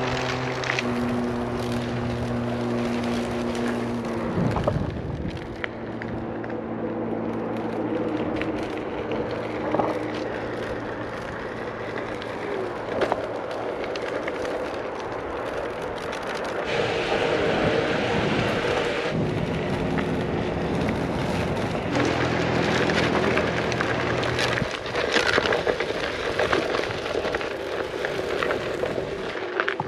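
Onewheel XR electric board being ridden: the hub motor hums steadily over the rolling noise of the tyre. The hum drops away after about four seconds and returns for a while later on.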